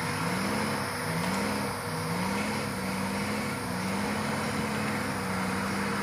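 Vehicle engine at low revs, its pitch rising in about five short surges roughly a second apart, then holding steady near the end, as it is eased forward slowly.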